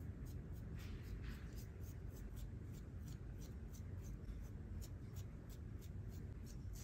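Disposable razor scraping across facial stubble in short, quick strokes, a few each second, each a brief scratchy rasp.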